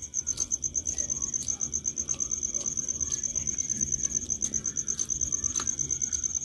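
A cricket trilling steadily in the background, a high, fast and evenly pulsing chirp. Scattered faint clicks and smacks of people eating rice and curry by hand from steel plates.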